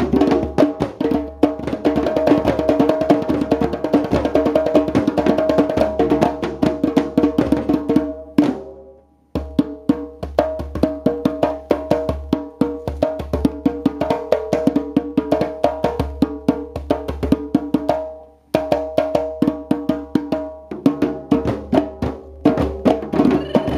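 A hand-drum group plays a fast, interlocking rhythm: djembes slapped and struck by hand, with drumsticks clattering on small drums set on the ground. The playing breaks off briefly twice, about nine seconds in and again about eighteen seconds in, then carries on.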